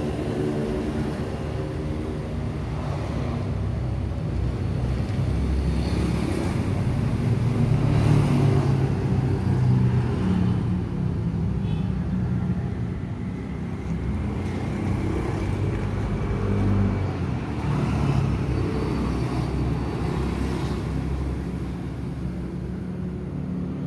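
Road traffic: a steady rumble of motor vehicle engines that swells and fades as vehicles pass.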